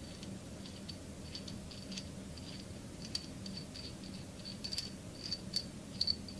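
A metal nut being spun off a bolt by hand, making small irregular metallic clicks and rattles on the threads that grow louder and more frequent in the second half.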